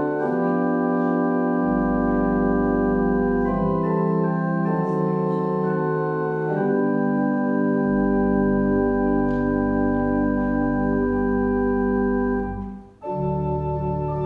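Organ playing slow sustained chords, with deep bass pedal notes under some of them. The chords change every few seconds, and the sound breaks off briefly near the end before a new chord begins.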